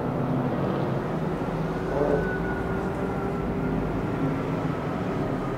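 Steady hum of distant vehicle engines over city background noise, with a faint, slightly wavering higher whine.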